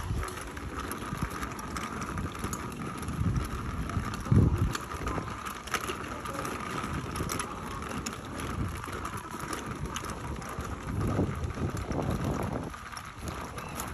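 Folding carry wagon's wheels rolling over an asphalt path, a steady rattling rumble with scattered clicks and a few low bumps, the strongest about four seconds in.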